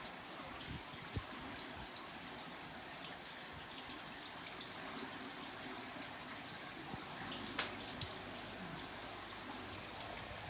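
Water trickling and running steadily, with a few faint ticks and one sharper click about seven and a half seconds in.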